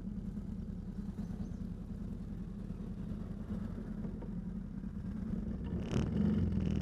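ATV engine running steadily while riding a dirt trail, a low steady hum. Near the end it grows louder, with a higher whine added.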